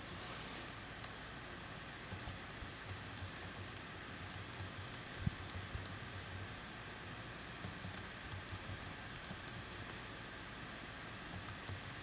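Typing on a computer keyboard: irregular clicks and taps in short runs, over a steady hiss.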